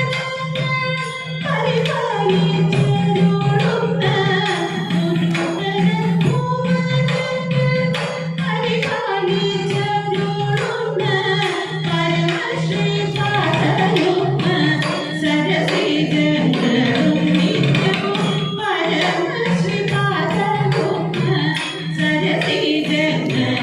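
Thiruvathira song: voices singing a Malayalam devotional melody over a steady rhythmic beat, the accompaniment for Thiruvathirakali dancing.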